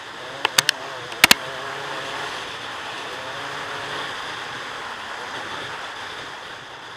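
Dirt bike engine running on a trail ride under heavy wind rush on the microphone, with several sharp knocks in the first second and a half.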